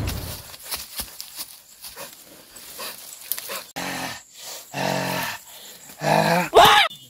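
Monster-like growling: a few short growls about five seconds in, then a louder growl near the end that rises and falls in pitch.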